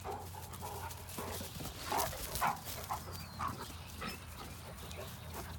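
Great Danes running and playing on grass: scattered short rustles and scuffs, with no barking.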